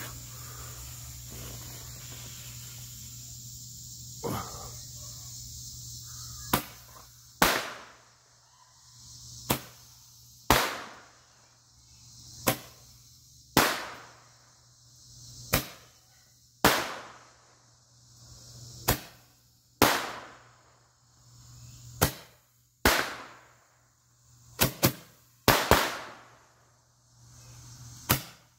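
Hand-held ten-ball roman candle firing. A steady fizzing of the lit candle for about six seconds, then a long string of sharp bangs, often in pairs, about one to two seconds apart, as the balls shoot out and burst.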